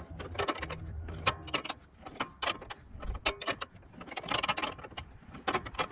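Irregular metallic clicks and clinks of hand tools on a garden tractor's mower deck, coming in small clusters as the deck-height adjustment nut is worked.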